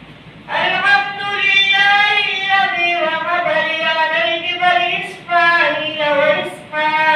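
A boy's amplified voice chanting melodically into a handheld microphone, in long held, wavering notes. It begins about half a second in and breaks briefly twice near the end between phrases.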